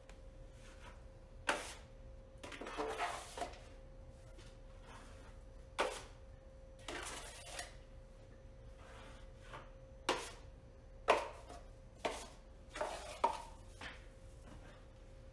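A drywall taping knife working setting-type joint compound: scraping it off a stainless mud pan and smearing it onto a ceiling patch. It makes a string of short metal scrapes and clinks a second or more apart, with a few longer scraping strokes, over a faint steady hum.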